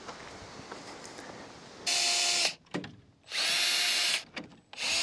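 Cordless drill spinning a wire-tie twister to tie rebar to the form braces: three short full-speed runs, each about a second or less, starting about two seconds in, with the last one still running at the end.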